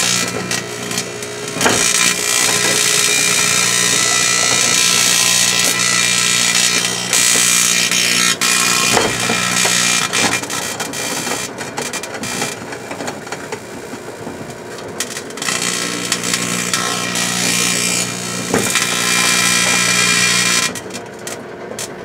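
Microwave oven running with a steady low hum while the metal scraps inside, copper wire, an aluminium welding rod, screws and staples, arc and spark with a constant hissing crackle and scattered sharp snaps.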